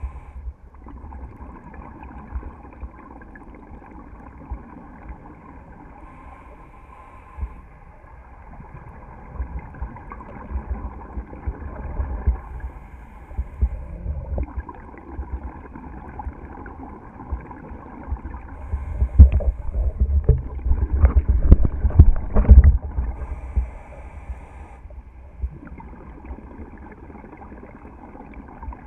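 Muffled underwater sound through a camera housing: a low rumble with gurgling bubbles from a scuba diver's exhalations, louder and more knocking for a few seconds about two-thirds of the way through.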